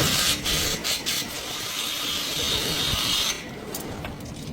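Steady hissing, grating work noise from a tool, cutting off abruptly a little over three seconds in, followed by light scattered clicks and knocks.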